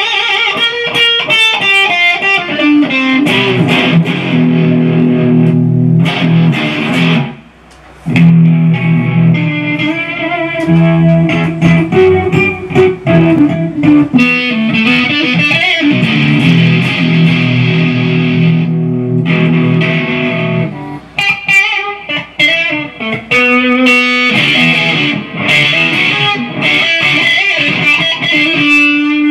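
Modified Kazuki Baby 1 mini electric guitar played through an EVH 50-watt amp head: held chords and fast single-note runs, with a short break about seven seconds in.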